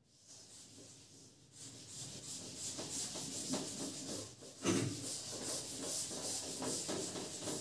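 Quick, scratchy rubbing strokes on a writing surface, going on for several seconds, with one thump about halfway through.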